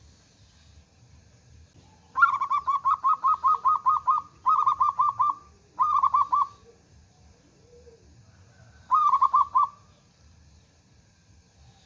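Zebra dove (perkutut) cooing song: fast runs of short, clipped notes at about eight a second. One long run, two short ones, then a pause before a final short run near the end.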